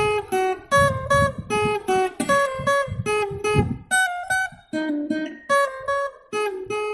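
Guitar music: a quick rhythmic tune of plucked and strummed notes, settling on a held note near the end.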